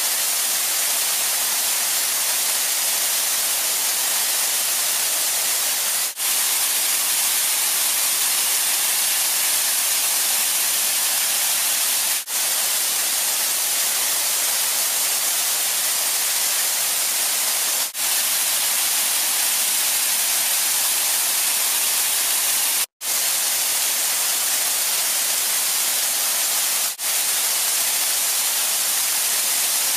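Waterfall and cascading mountain stream: a steady, loud rushing hiss of falling water, with brief dropouts five times.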